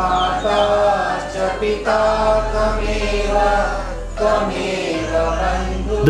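Background music of chanted singing: long held vocal notes in three phrases of about two seconds each.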